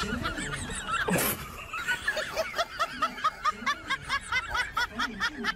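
Rapid run of short, high-pitched animal squeaks, several a second, each rising and falling in pitch, with a sharp knock about a second in.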